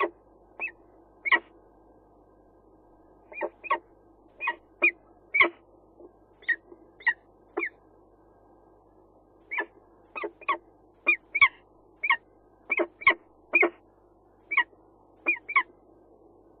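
Peregrine falcon giving short, sharp calls, some thirty in irregular runs, each a brief note that bends slightly in pitch.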